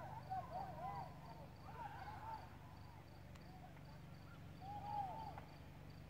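Rural outdoor ambience: clusters of short rising-and-falling chirping calls come and go, over a faint high note repeating several times a second and a steady low hum.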